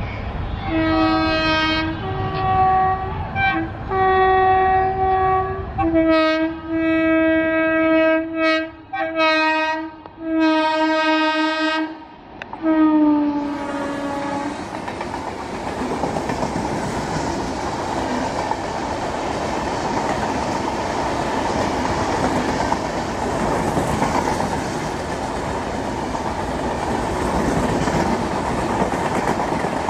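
Indian Railways electric locomotive sounding its horn in a string of long and short blasts, the last one falling in pitch as the locomotive draws level. Then the steady rumble and clickety-clack of the passenger coaches rolling past.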